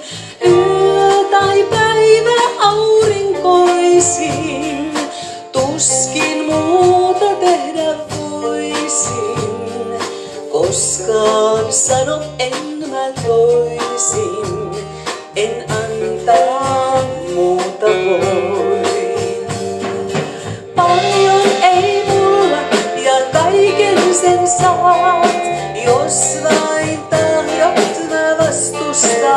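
Live rautalanka band of electric and acoustic guitars, bass and drums playing a song with a steady beat, while a woman sings the lead vocal.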